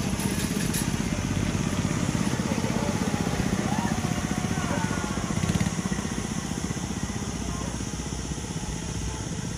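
Go-kart engines running, a steady low pulsing drone that builds over the first couple of seconds and eases off a little after about five and a half seconds.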